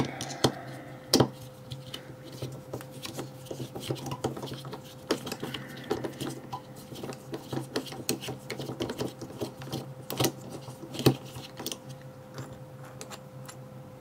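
An ASSA Ruko 2 padlock being taken apart: a driver from a folding key set turns a screw in the padlock's base, with small metal clicks and scrapes from the tool and lock body and a couple of sharper clicks, about a second in and near the end.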